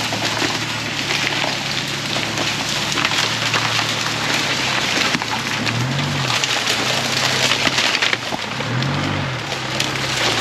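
Tyres of a 4x4 pickup crawling over dry bamboo and dead grass, a dense crackle of snapping stalks and leaves, over the truck's low engine hum. The engine revs up briefly and drops back twice, once past the middle and again near the end.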